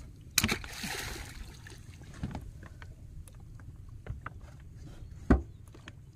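Knocks and thumps on a wooden fishing boat as a fisherman moves about and handles the gear on board. A sharp knock about half a second in is followed by a brief rustle, softer knocks come in between, and the loudest thump falls about five seconds in.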